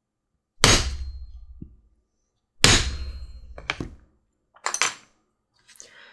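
Mallet striking a hand drive punch through a leather strap to cut a hole: two loud strikes about two seconds apart, each ringing briefly, followed by a few lighter knocks and clicks.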